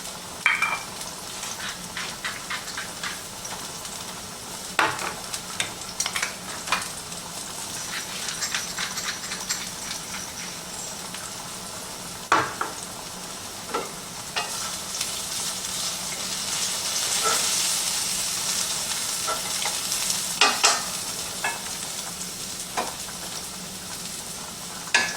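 Zucchini and garlic sizzling in oil in a frying pan, with a utensil clicking and scraping against the pan as the vegetables are stirred. The sizzle swells a little past the middle.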